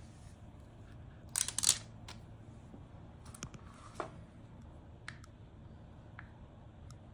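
Unboxing handling noises: a short rustle of paper or plastic packaging about a second and a half in, another smaller rustle later, and then a few sharp small clicks from a handheld gimbal camera and its plastic parts being handled.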